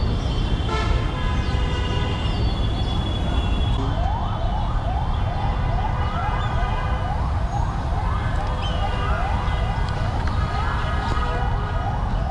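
A siren wailing in quick rising sweeps, about two a second, from about four seconds in, over a steady low rumble of traffic. In the first few seconds, before the siren, steady held horn-like tones sound.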